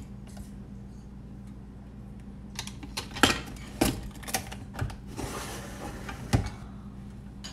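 Glass storage jars and their lids clinking and knocking on a kitchen countertop as a jar is closed and set back, a string of sharp clicks over a few seconds with a short scraping hiss among them. A low steady hum sits underneath.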